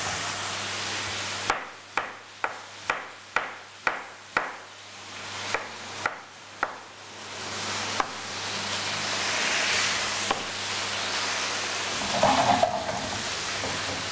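Vegetables sizzling in a frying pan, broken for about five seconds by a knife chopping spring onions on a cutting board: sharp strokes about two a second. A brief louder sound comes near the end.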